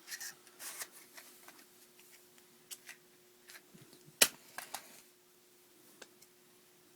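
Hands working the gas control of a water heater: rustling and scattered small clicks, with one sharp loud click about four seconds in, over a faint steady hum.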